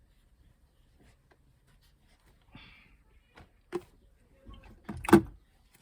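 Scattered small handling sounds at a car door: a brief rustle, a few light clicks, and one sharper knock about five seconds in.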